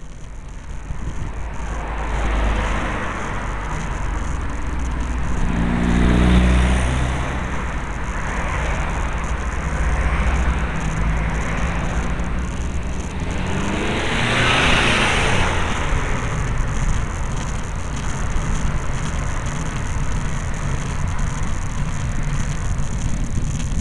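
Cars driving past on a mountain road, two passes standing out, about a quarter and about two-thirds of the way in, each swelling and fading. Low wind rumble on the microphone of a camera riding on a bicycle runs underneath.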